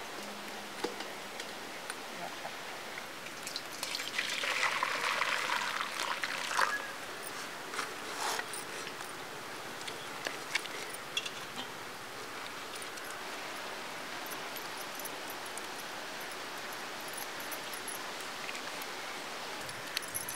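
Water splashing in a steel bowl as pieces of goat tripe and intestine are rinsed by hand, loudest for a couple of seconds about four seconds in. Scattered small clicks and knocks sit over a steady background hiss.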